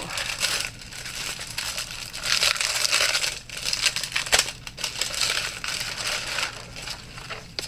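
Crinkling and rustling of craft materials being handled, in uneven bursts, with a few sharp clicks.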